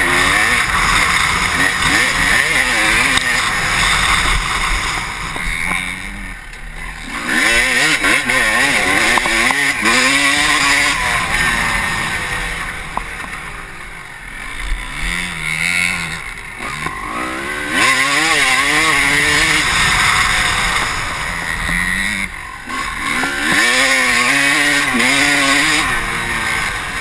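Honda CR250 two-stroke single-cylinder motocross engine revving hard up through the gears, pitch climbing and breaking at each shift, dropping off three times as the throttle is closed. Heavy wind rush on the helmet-mounted microphone.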